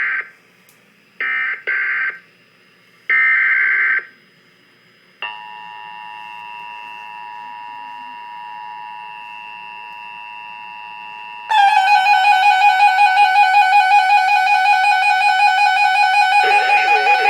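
Emergency Alert System signalling. It begins with several short, buzzy digital data bursts over the first four seconds. About five seconds in, a steady multi-tone attention signal starts, and about eleven seconds in a louder, fast-pulsing alert tone takes over.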